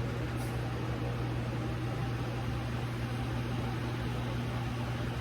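Steady low hum with an even hiss, unchanging throughout, like a fan or small appliance running.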